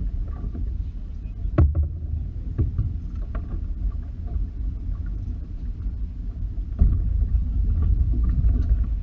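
Steady low rumble of a small fishing boat at sea, with scattered knocks, one sharp one about one and a half seconds in. It grows louder near the end.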